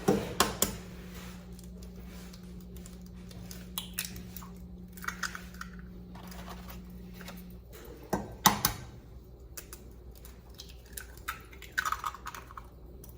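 Chicken eggs being cracked against a bowl: sharp taps and knocks with small crunches of shell, the loudest pair of knocks a little past the middle.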